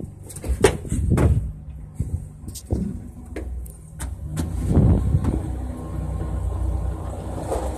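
Truck engine running as the truck drives, a steady low rumble, with several sharp knocks and rattles in the first few seconds and a louder stretch about five seconds in.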